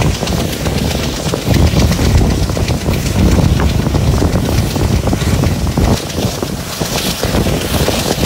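Passenger train running behind a WDP3A diesel locomotive: the loco's ALCO diesel engine chugging in a low pulsing rumble, with wheels clattering on the rails and wind on the microphone.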